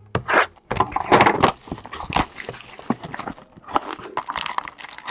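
Baseball trading cards and their packaging being handled: an irregular run of clicks, taps and rustles, busiest about a second in.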